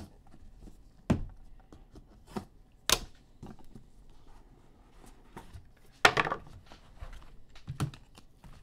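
Hands opening and unpacking a cardboard trading-card box: a few sharp knocks and taps of cardboard and plastic card cases, the loudest about six seconds in followed by a brief rustling scrape, with light handling noise between.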